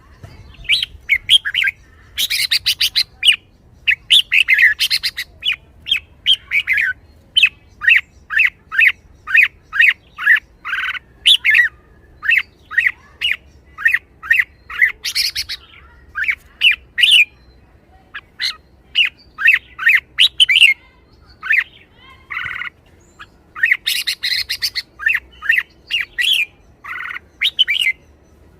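Red-whiskered bulbul calling busily: short, bright chirping notes in quick succession, broken by a few harsh rattles, the lively 'rik-rik-rik' of an excited bird.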